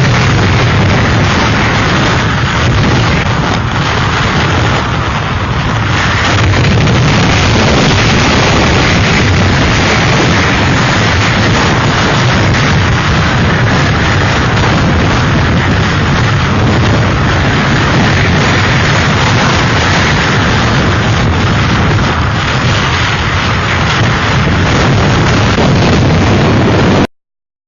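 Strong storm wind buffeting the microphone: a loud, steady rushing noise that cuts off suddenly near the end.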